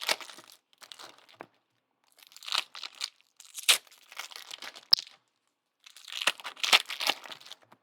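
Trading card pack wrappers being torn open and crinkled by hand, in several short bursts of tearing and rustling with brief pauses between them.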